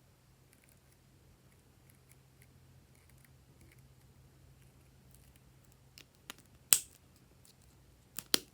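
Glossy slime being handled and mixed: faint crackling and ticking, with a few sharp clicks, the loudest just after the middle and a quick pair near the end.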